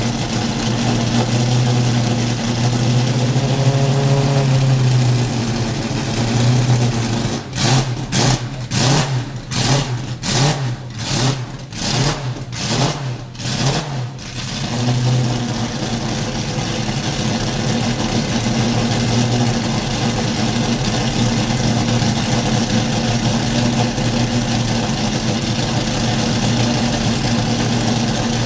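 Jaguar XJR-15's 6.0-litre naturally aspirated V12 idling during warm-up. In the middle it is revved in a quick string of short throttle blips, about two a second for some six seconds, before settling back to a steady idle.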